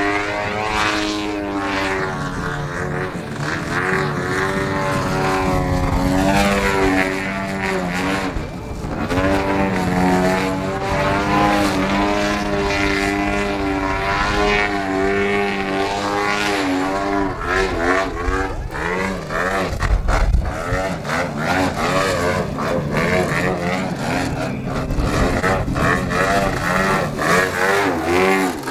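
Pilot RC Extra 330LX model aerobatic plane's ZDZ 97cc two-stroke petrol engine with an RE3 tuned pipe, driving its propeller in flight. The engine note keeps rising and falling, swooping up and down more sharply in the second half as the plane tumbles and passes.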